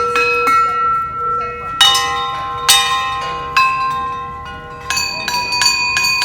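Several hanging bells struck by hand in turn. Each strike rings on in clear, sustained tones that overlap the last, at first about a second apart, then in a quicker run of taps near the end.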